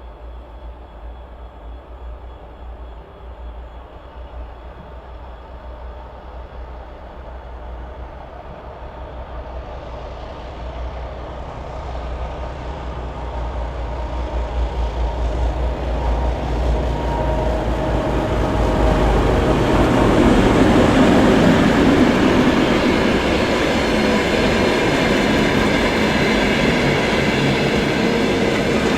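2M62U twin-section diesel locomotive with a freight train, approaching with a deep engine drone that grows steadily louder over about twenty seconds. Then the wheels running on the rails stay loud and steady as the train passes.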